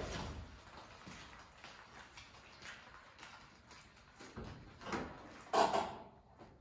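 A few faint, scattered knocks and thumps, with a sharper, louder knock about five and a half seconds in, as someone moves around and handles a Land Rover Series 3.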